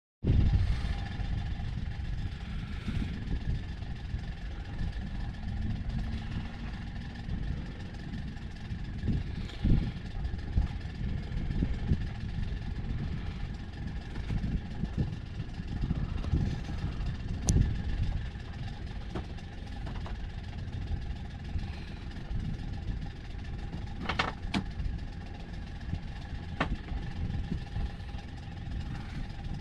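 A sailboat's engine running steadily while motoring, under gusty wind rumble on the microphone. A couple of sharp clicks come in the second half.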